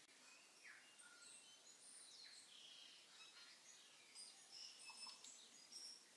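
Faint sound of water poured into a stainless steel pressure-cooker pot over rice, heard as scattered small bubbling and plinking blips against near silence.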